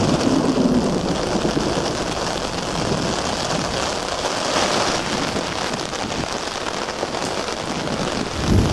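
Heavy rain pouring down in a storm: a steady, dense hiss of drops that swells briefly about halfway through.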